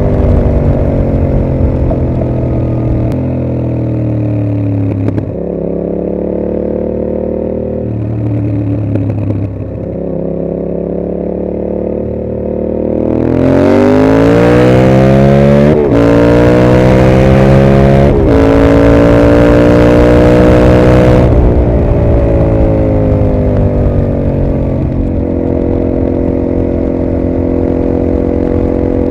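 Yamaha MT-07's parallel-twin engine through a Mivv GP exhaust, under way. Revs fall off the throttle at first, with a few steps in pitch. About halfway through it accelerates hard through two gear changes and holds high revs for a few seconds. It then eases off again and settles to a steadier run near the end.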